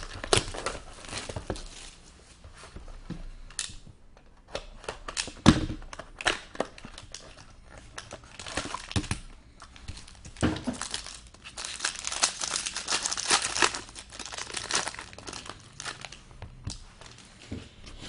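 A new box of hockey cards being unwrapped: plastic wrapping crinkling and tearing with sharp crackles, and cardboard handled. The crinkling is densest about two thirds of the way through.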